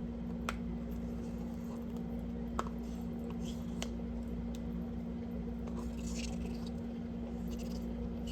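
Greek yogurt being spooned from its tub into a bowl: soft, wet squishing and scraping, with a few light clicks of the spoon against the container. A steady hum runs underneath.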